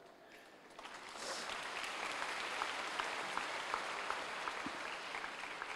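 Audience applauding, a steady patter of many hands that starts about a second in and fades away near the end.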